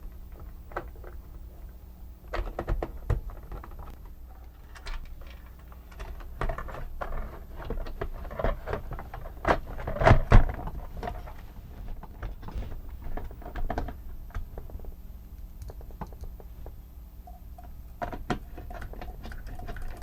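Scattered clicks, knocks and rattles of the Omnibot 2000 robot's plastic torso parts being handled and taken apart, with a louder clatter about halfway through, over a steady low hum.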